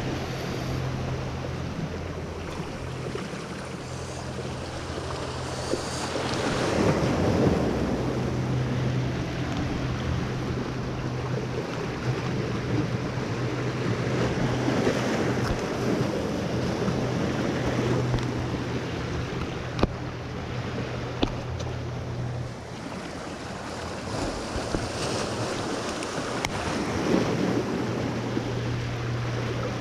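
Sea surf washing and breaking over jetty rocks, swelling every several seconds, with wind on the microphone. Under it runs a steady low hum that drops out now and then, and a couple of sharp clicks come about two-thirds of the way through.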